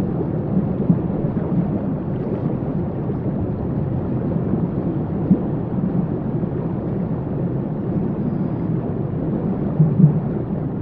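Waterfall: a deep, steady rush of falling water.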